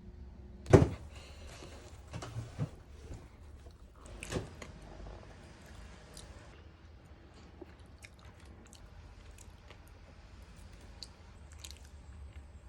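A person eating at a table: chewing and biting, with a few sharp knocks, the loudest about a second in, then faint scattered clicks.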